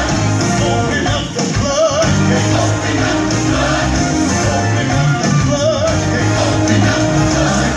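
Recorded gospel song playing: a singer's voice, held and wavering on long notes, over a band with a steady bass and beat.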